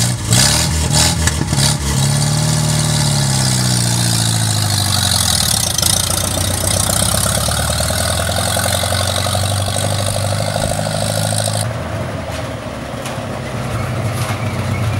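Old Willys jeep engine starting up and pulling away, its pitch rising and then falling a few seconds in, then running steadily.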